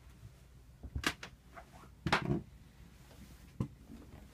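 A few sharp knocks and bumps over a low hum: one about a second in, the loudest about two seconds in, and another near the end.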